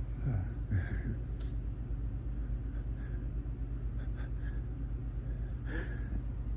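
A person sniffing and taking short catching breaths while a sneeze builds, with two small falling-pitch voice sounds in the first second. A steady low hum runs underneath.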